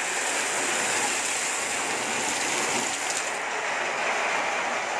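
Fire hose water jet dousing a house fire: a steady rushing hiss of water. The highest part of the hiss drops away about three seconds in.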